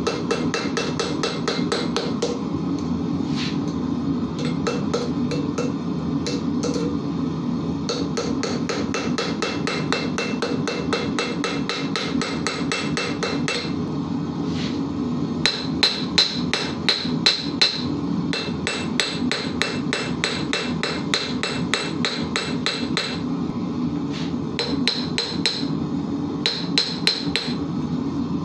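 Hand hammer striking hot iron held in tongs on a steel anvil in a rapid run of blows, paused twice while the piece is reheated, with a few heavier blows a little past the middle: a forge-welding attempt, which the smith later judges failed because his gas forge does not get hot enough. A steady low rushing noise runs underneath.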